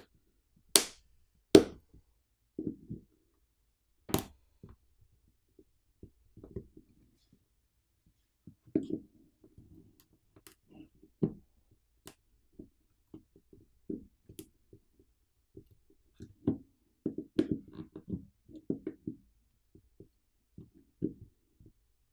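Tools prying at the glued plastic housing of an Anker Prime 160W wall charger, working it open: a few sharp clicks in the first four seconds, then a long run of irregular taps and knocks of tool and plastic.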